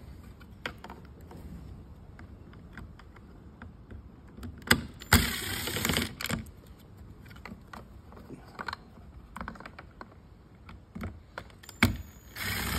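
Cordless drill with a T10 Torx bit on a long extension running in two short bursts, about five seconds in and again near the end, backing out a screw in a side-mirror housing. Small clicks and knocks of handling the plastic housing come between the bursts.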